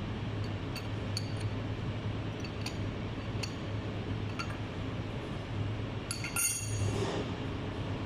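Light metallic clinks and ticks at scattered moments, with a brief ringing metal clatter about six seconds in, over a steady low hum of shop machinery.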